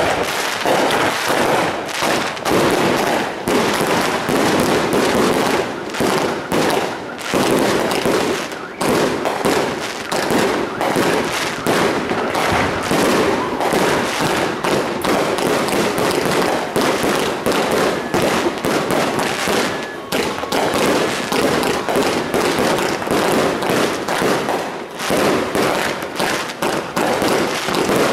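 260-shot Eclipse firework cake firing in rapid succession: a dense, continuous barrage of launches and bursts, with a few brief lulls.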